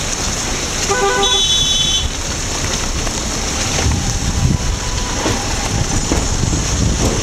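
Steady rumble and road noise of a car driving slowly over a rough, unpaved road strewn with landslide rubble, heard from inside the car. A vehicle horn sounds once, about a second in, for about a second.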